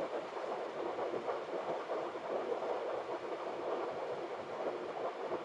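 Steady rushing noise of airflow and engines in the flight deck of a Boeing 737 on short final approach.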